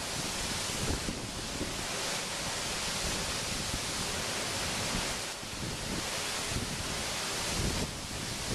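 Heavy wind-driven rain pouring down in a thunderstorm, its hiss swelling and easing with the gusts, while strong wind buffets the microphone.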